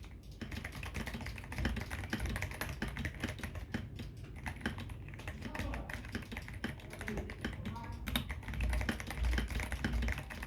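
Keydous NJ68 mechanical keyboard being typed on steadily: a fast, continuous run of key clacks from lubed brown tactile switches, with the case fully foamed and Akko carbon retro keycaps fitted.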